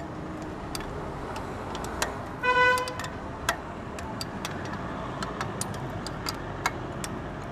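Sharp, scattered clicks of a spoke wrench working the nipples of a motorcycle's wire-spoked wheel as loose spokes are tightened, over steady traffic noise. About two and a half seconds in, a short horn toot from a passing vehicle.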